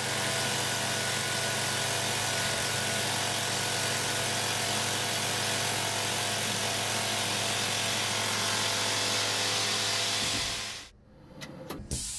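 Tormach PCNC 770 milling machine facing an aluminium block with a Superfly fly cutter at 2500 RPM: a steady cutting sound with a constant hum under a bright hiss. It stops abruptly about eleven seconds in, followed by a few short knocks.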